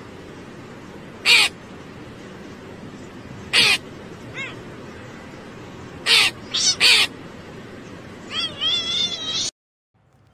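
Crow cawing: five short calls spread over about seven seconds, the last three in quick succession, over a steady background noise. Near the end comes a run of wavering calls, and then the sound cuts off.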